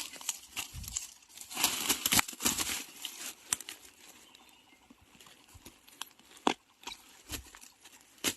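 Dry leaves and bamboo undergrowth rustling and crackling, loudest in the first few seconds, followed by a few sharp snaps of young golden bamboo shoots being pulled and broken off.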